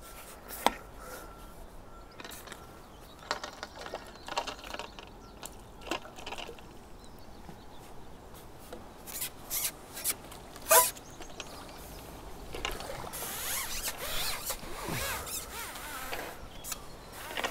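Scattered clicks, knocks and rustles of pole-fishing tackle being handled, with light splashing, while a small roach hooked on the pole rig is brought in and landed. One louder knock comes about eleven seconds in.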